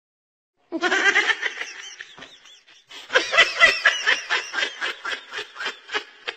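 People laughing hard in quick repeated bursts, starting just under a second in, easing off briefly and then picking up again for several more seconds.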